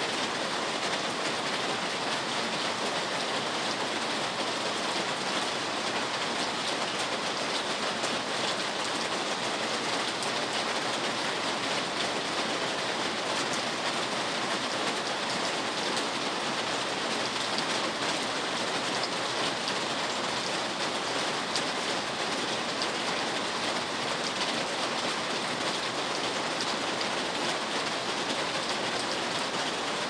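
Steady rain falling, a constant even hiss with no change throughout.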